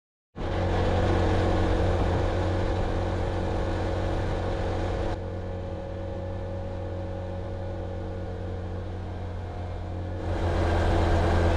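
Motorcycle engine running steadily while riding. It drops back about five seconds in and picks up again near the end.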